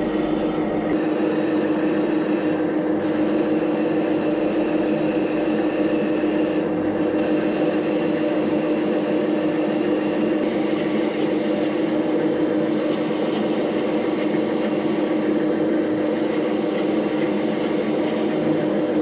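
Metal lathe running steadily, a constant motor hum with a strong low tone that does not change.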